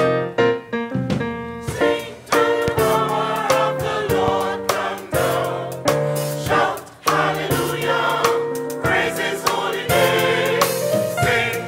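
Mixed-voice church choir singing a gospel song over keyboard accompaniment, the keyboard introduction giving way to the choir's entry about two seconds in.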